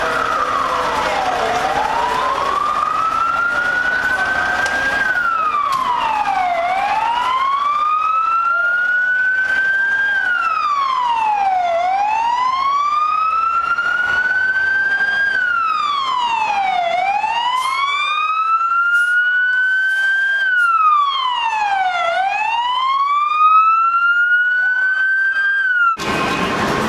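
Emergency vehicle siren on a wail cycle, about every five seconds: it climbs slowly to a high pitch, then drops quickly and climbs again. The siren cuts off abruptly near the end.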